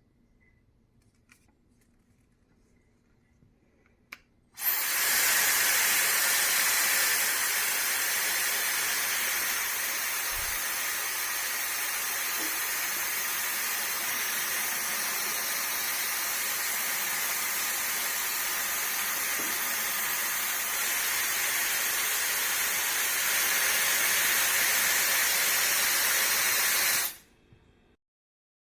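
YAPOY high-speed ionic hair dryer, with its 110,000 RPM motor, switched on after a click about four seconds in and blowing steadily with an airy hiss, a little louder near the end, then switched off suddenly.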